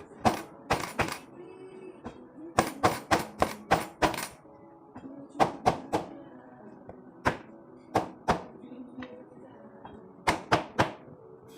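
Knife chopping through sweet potato on a cutting board: sharp chops in quick runs of several strokes, with short pauses between the runs.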